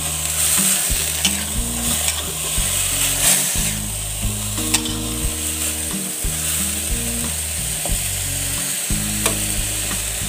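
Sliced bitter gourd sizzling as it is stir-fried over high heat in an aluminium wok, with a metal spatula scraping and clicking against the pan as it is stirred.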